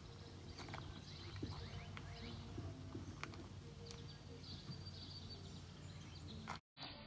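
Faint outdoor ambience: a low steady hum, a few light knocks and thin high bird chirps. It drops out for a moment near the end.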